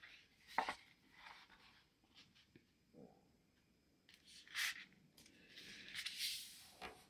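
Faint rustling and brushing of a sheet of paper being folded in half and its crease smoothed flat by hand: a few short brushes, then a longer rubbing near the end.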